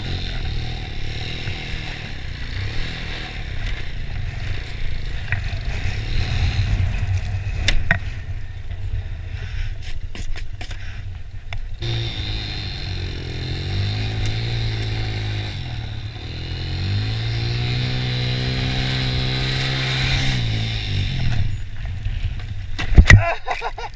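Small single-cylinder four-stroke engine of a 1996 Honda TRX90 quad revving up and down over and over as it is driven hard in snow. It falls off a little around the middle. A loud clatter comes about a second before the end.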